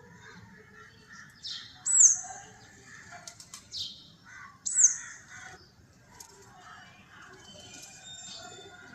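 Sparrows chirping, several birds at once, with loud, sharp chirps in the first half and softer chatter after.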